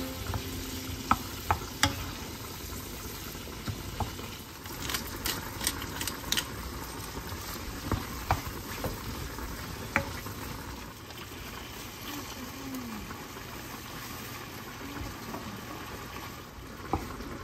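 Cherry tomatoes, shrimp and bacon frying in oil in a nonstick wok, giving a steady sizzle, while a wooden spatula stirs them and knocks against the pan in scattered sharp clicks.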